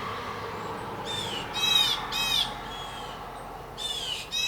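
Blue jays calling: several loud calls, each dropping in pitch at its end, in two bursts about two seconds apart.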